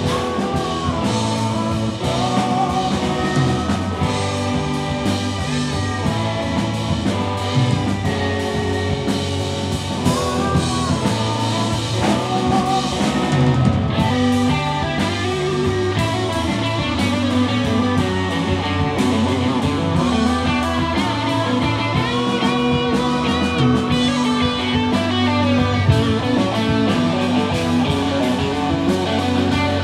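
A progressive rock band playing live: electric guitar, bass, drums and keyboards, with a man singing at times.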